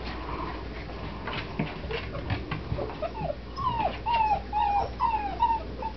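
Black Labrador puppies whimpering: a run of short, high whines, each falling in pitch, begins about halfway through and repeats to the end, after a few soft knocks.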